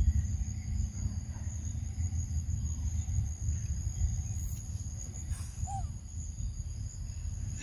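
Steady outdoor insect chorus shrilling in several high tones over a continuous low rumble, with one brief chirp about six seconds in.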